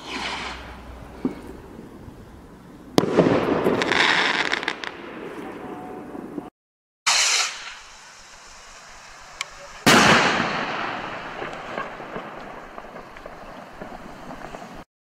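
Consumer firework rockets (Air Raid and Space Mission rockets) launching with a rising whoosh and bursting with sharp bangs that trail off; the loudest bursts come about three and ten seconds in. The sound drops out to silence twice for a moment between clips.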